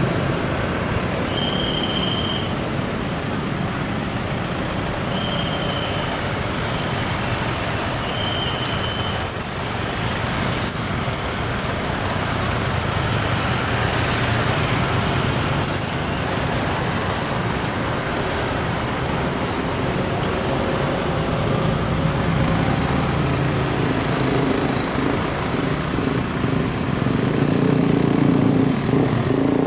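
Slow, congested road traffic passing close by: car and minibus engines creeping along, with motorcycles going past. Three short, high, steady tones sound in the first nine seconds, and the engine rumble grows louder near the end.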